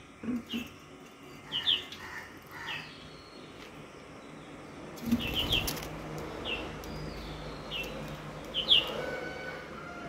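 Lovebirds giving short, sharp, falling chirps, singly and in quick pairs and triplets throughout. About five seconds in comes a brief burst of rustling noise, followed by a low steady hum and hiss.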